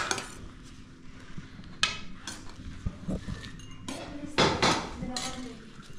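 Metal spoons clinking and scraping against ceramic plates as rice pudding is served and eaten: scattered sharp clinks, the loudest about four and a half seconds in.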